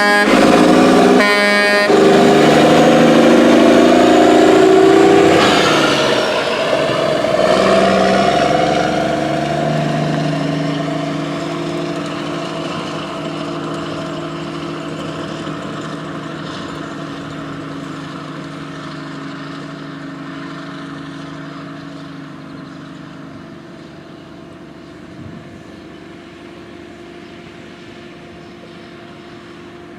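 A heavy diesel machine's engine running loud and close, then fading steadily into the distance as it moves away, with a falling whine about five seconds in.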